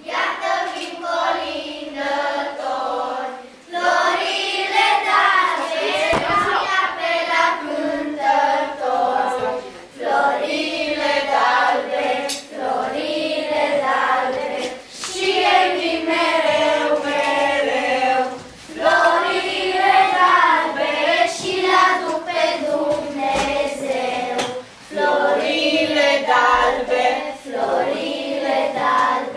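A group of children singing a Romanian Christmas carol (colindă) together, in phrases of a few seconds with short breaks for breath between them; the singing starts abruptly.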